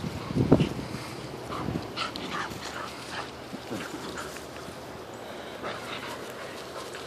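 A puppy and an older long-haired dog play-wrestling, with short, high dog yips coming in a scattered series in the first few seconds. The loudest sound is a brief low burst about half a second in.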